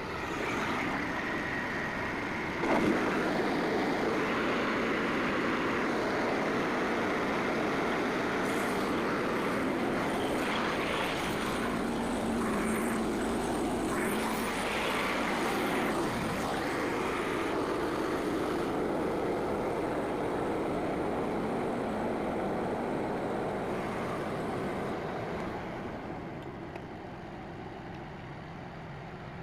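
Frontier portable band sawmill running: its engine comes up to speed at the start with a brief sharp jolt about three seconds in, runs steadily, then drops back to a lower, quieter running about 25 seconds in.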